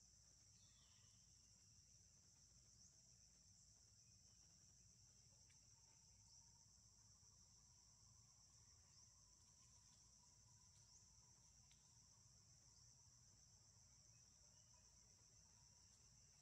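Near silence with a faint, steady high-pitched insect chorus and a few faint short chirps.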